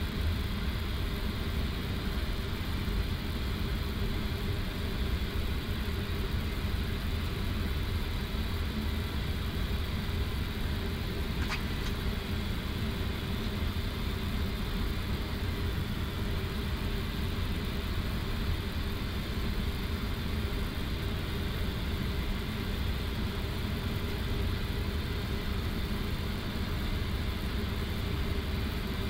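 Steady flight-deck noise of an Airbus A330-200 taxiing in at idle thrust: an even low hum with a hiss of cockpit air and fans over it. One faint click comes about twelve seconds in.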